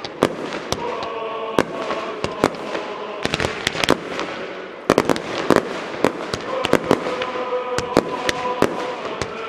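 Fireworks display going off: many sharp bangs of bursting shells, several in quick clusters, over a steady hiss and crackle of rising comets. Some steady held tones sound underneath.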